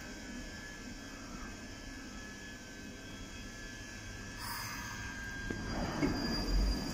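Northern Line 1995-stock tube train at the platform, a steady low hum with a brief hiss about four and a half seconds in, then louder low rumbling near the end.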